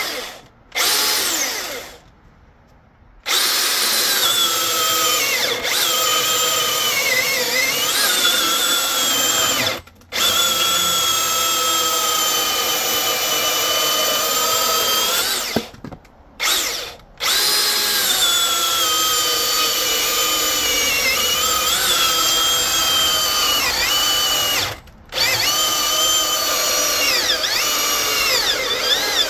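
Milwaukee M18 dual-battery chainsaw running a .325 Frostbite chain through hardwood, its electric motor whine sagging in pitch as the chain bites and picking back up. The trigger is let off and squeezed again several times, leaving short breaks in the sound.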